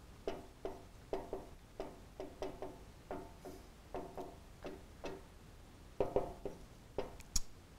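Dry-erase marker squeaking on a whiteboard in short handwriting strokes, about two squeaks a second, with a sharp tick near the end.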